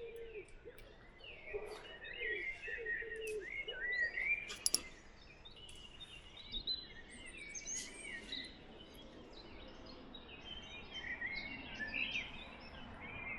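Small birds singing and chirping on and off. A brief burst of sharp clicks comes about four and a half seconds in.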